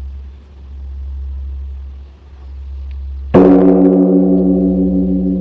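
Large bronze Buddhist temple bell struck once about three seconds in, ringing on with several steady tones that pulse slowly as they fade. Before the strike, a low hum swells and fades in slow pulses.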